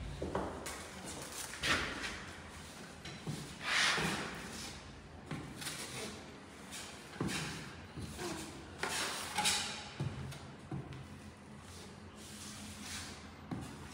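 Putty knife spreading and scraping joint compound over a taped drywall seam: a series of short scraping strokes, one every second or two.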